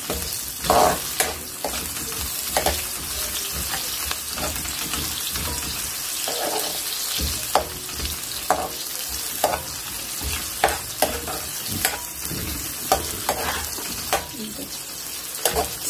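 Sliced onions sizzling in oil in a metal karahi, being lightly sautéed. A metal ladle stirs them, scraping and knocking against the pan about once a second.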